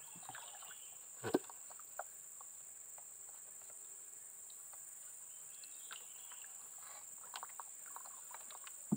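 Steady high-pitched drone of an insect chorus, with a single sharp knock just over a second in and a few faint taps and clicks.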